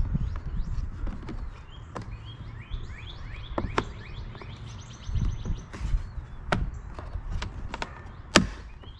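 Small birds chirping steadily, with several sharp plastic clicks and knocks as a motorcycle's plastic fairing panel is pressed onto its clips, the loudest click near the end.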